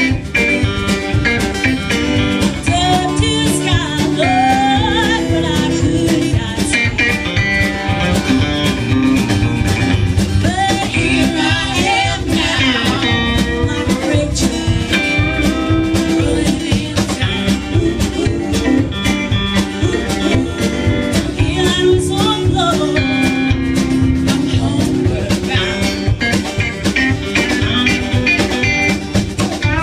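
Live band playing a song with acoustic guitar, electric guitar, upright bass and drum kit, a woman singing lead in several stretches over the steady backing.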